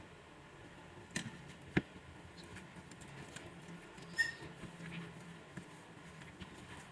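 Light kitchen handling sounds: three short sharp clicks or taps, the loudest just under two seconds in, over a low background.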